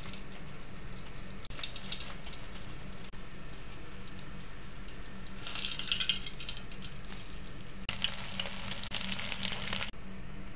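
Hot oil sizzling and crackling in a frying pan, swelling louder in spells about two, six and eight to ten seconds in, over a steady low hum.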